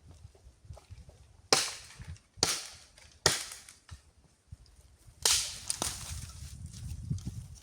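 A series of sharp cracks or knocks, four loud ones about a second apart and a fainter fifth near the end, each dying away quickly.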